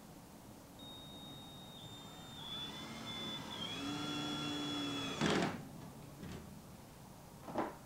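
Cordless drill driving a screw into a metal bracket: the motor whine rises in pitch as it spins up, runs steady for a couple of seconds, then stops with a short loud clatter about five seconds in. Another short clatter comes near the end.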